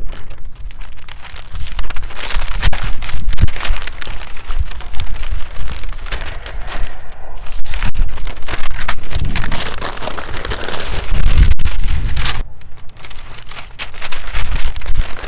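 Brown kraft packing paper and cardboard being pulled apart and crumpled close to the microphone: continuous crackling and rustling with frequent sharp crinkles.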